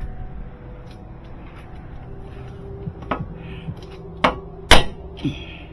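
Hammer blows on a Suzuki Carry's front steering knuckle during suspension disassembly: four sharp metallic strikes in the second half, the third the loudest.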